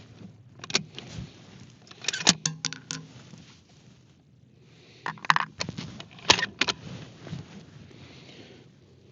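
Metallic clicks and clacks of the bolt on a Ruger Precision Rifle being worked between shots, in two clusters about two seconds in and again about five to seven seconds in.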